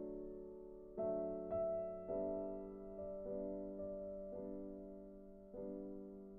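Background piano music: slow chords struck roughly once a second, each ringing out and fading before the next.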